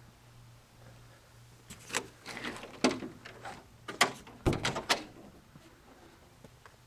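Clicks and rattles of a latch and a metal door or panel being worked on a box truck, with one heavy thud about four and a half seconds in.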